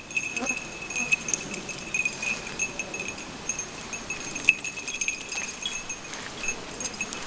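Small metal bell jingling continuously: a steady high ringing with many quick clinks over it, fading out near the end.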